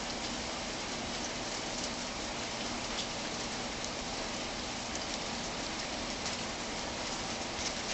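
Steady rain from a thunderstorm, with scattered sharp hits of drops striking something close by. No thunder is heard.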